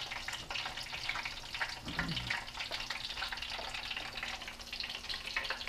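Breaded brook trout fillets frying in hot oil: a steady crackling sizzle of many small pops.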